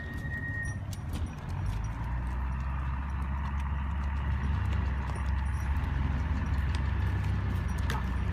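Horses' hooves on a sandy dirt track, over a steady low rumble that grows louder about a second and a half in.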